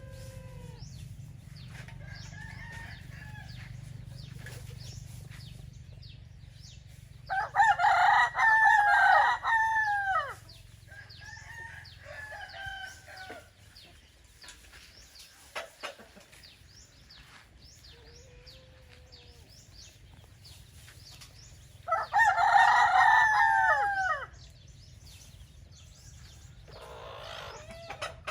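Roosters crowing: two loud, long crows, one about seven seconds in and one about twenty-two seconds in, each lasting two to three seconds. Fainter, shorter crows and calls from other chickens come in between.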